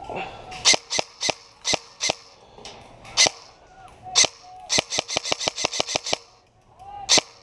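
Airsoft gun firing: a few spaced single shots, then a rapid burst of about eight shots a second, and one last shot near the end.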